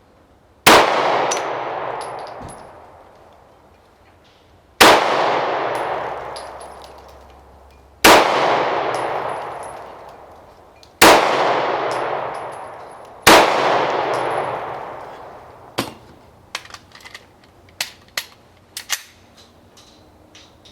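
Five slow, deliberate pistol shots from a Beretta Nano, a few seconds apart, each with a long echo that fades over about three seconds. A few light clicks follow near the end.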